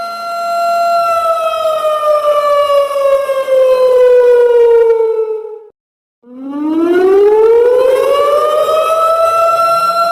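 Electronic siren sound effect in a slow wail: a steady high tone glides down in pitch over about five seconds, cuts out for half a second just past the middle, then glides back up to the steady tone.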